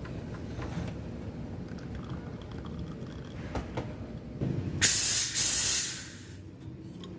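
Espresso machine steam wand releasing a loud blast of steam hiss about five seconds in, lasting just over a second before it cuts off. This is typical of purging the wand before steaming milk. It follows a low background rumble and a few light knocks.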